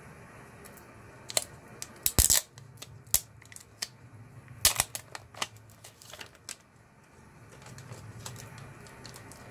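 Crinkling and crackling of clear plastic film being peeled off a replacement phone battery: irregular sharp snaps and crackles, loudest about two seconds and five seconds in, dying away after about six and a half seconds.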